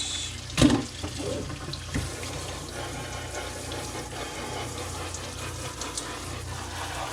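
Kitchen tap running steadily into a sink as something is rinsed under it, with a single sharp knock a little over half a second in.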